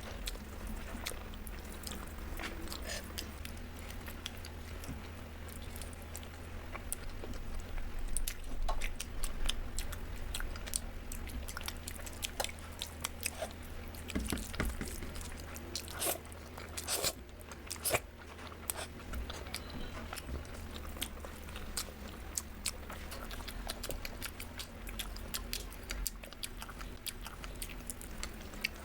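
Close-miked eating: chewing and biting with many short crisp crunches, over a steady low hum.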